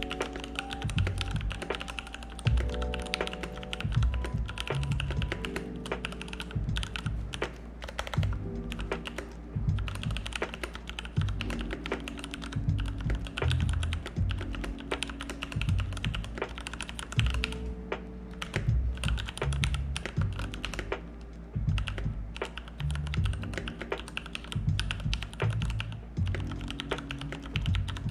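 Continuous typing on a Keychron mechanical keyboard, a dense run of irregular clacking keystrokes, with music playing underneath.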